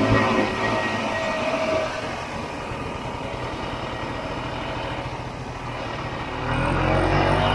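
Vintage two-stroke snowmobile engine running under way, easing off to a lower, quieter note about two seconds in, then revving back up with rising pitch near the end.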